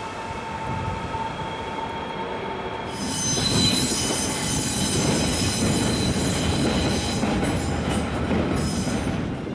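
Wheels of a DB class 147 electric locomotive and its double-deck coaches squealing on the rails as the train moves slowly, with a low rumble underneath. The high-pitched squeal gets much louder about three seconds in.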